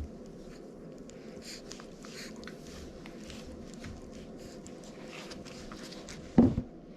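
Puppies shuffling and scratching about, with many small scattered clicks and rustles, and one short, louder low sound about six seconds in.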